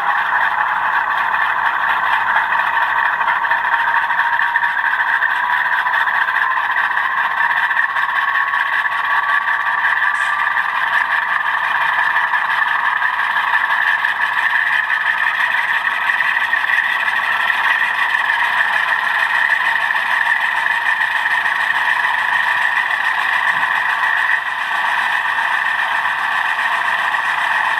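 HO-scale model diesel locomotive's sound decoder playing a GE diesel engine, revved in engine hold through the model's small onboard speaker, with no deep bass. The engine pitch climbs slowly over roughly the first twelve seconds as it notches up, then holds steady at the higher speed.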